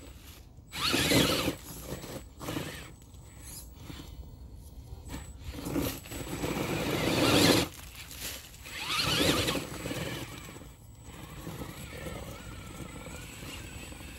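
Electric RC crawler's brushless motor and gear drivetrain whining in several bursts, the pitch rising and falling as the throttle is worked. The loudest burst builds from about six seconds in and cuts off suddenly a little past halfway.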